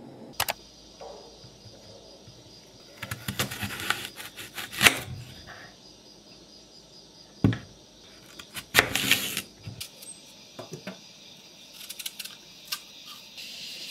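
Kitchen knife cutting an apple on a cutting board: scattered knocks of the blade and fruit on the board and short crunchy cuts through the apple, the loudest knock about five seconds in.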